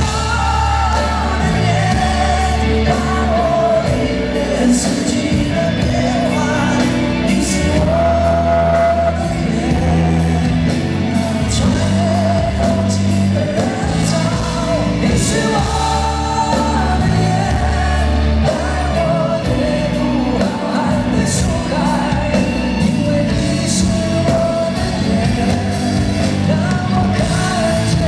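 Live band performing a Mandarin pop-rock ballad, with singing over drums, bass, keyboards and electric guitar, cymbal crashes ringing out above; the sound carries the reverberation of a large concert hall.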